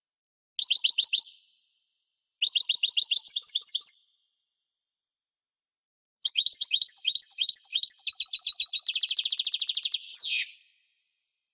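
European goldfinch singing in three bursts of rapid, high twittering notes. The last burst is the longest at about four seconds and closes in a fast trill and a falling note.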